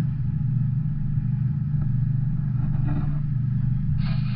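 Double-stack intermodal freight cars rolling past: a steady low rumble, heard through a window. A brighter hiss joins near the end.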